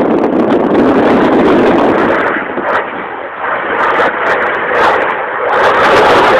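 Loud jet aircraft engine roar, easing off around the middle and swelling again near the end.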